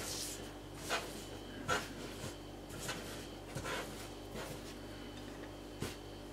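Soft rustling and a few light brushes and taps as hands roll strips of fresh tagliatelle into a nest on a cloth-covered worktop, over a faint steady hum.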